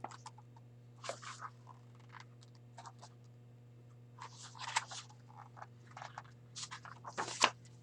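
Pages of a picture book being handled and turned: a few soft rustles and scrapes of paper, over a steady low hum.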